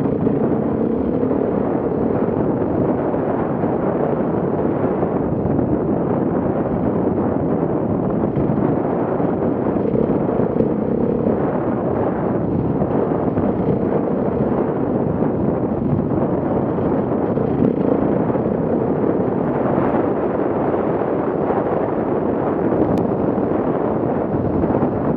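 Off-road enduro motorcycle engine running steadily while riding a rough trail at speed, largely buried under heavy wind buffeting on the action camera's microphone.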